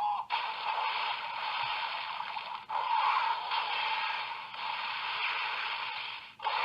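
Electronic hissing sound effect from a Kamen Rider Wizard roleplay toy, played in three stretches that each cut off abruptly.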